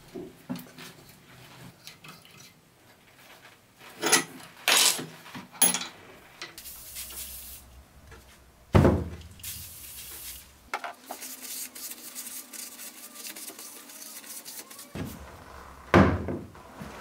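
Metal parts clink and knock on a wooden workbench, with a few stretches of hissing aerosol spray. A loud knock comes about a second before the end, as a wheel is set down on the bench.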